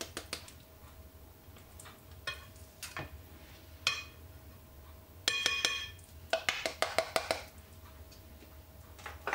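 A metal spoon tapping and clinking against a glass baking dish as spice powder is knocked off it: scattered single clinks, a ringing glass clink about five seconds in, then a quick run of light taps.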